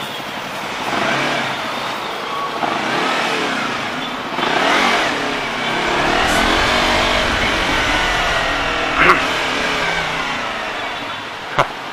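Sport motorcycle engine revving up and down as the bike filters between cars in slow traffic, its pitch rising and falling over a steady road rush. There is a short sharp sound about nine seconds in.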